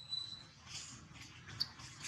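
Faint rustling of dry leaf litter stirred by a long-tailed macaque's hand, in soft short patches with a small click about three-quarters through. A thin high whistle fades out just after the start.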